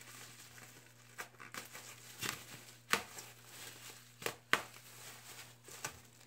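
Bubble wrap being pulled open by hand, crinkling, with scattered sharp crackles about once a second.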